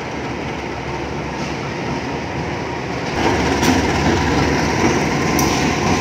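CC 201 diesel-electric locomotive (GE U18C) running light past during a shunting move. Its engine and wheel noise gets louder about three seconds in as it draws near, with a few sharp clacks of wheels on the track.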